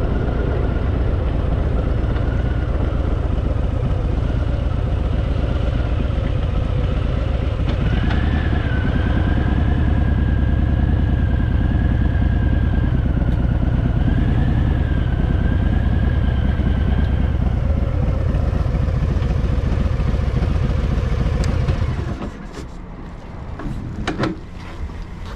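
Harley-Davidson Fat Boy V-twin engine running steadily at cruising speed, a deep rumble with a tone that steps up about 8 seconds in. Near the end the engine noise drops away sharply, followed by a few clicks.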